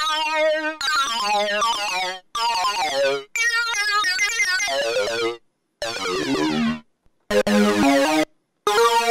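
Korg minilogue four-voice analog synthesizer playing a classic lead-style patch, captured straight from its output: short phrases of notes with a wavering vibrato, broken by brief silences.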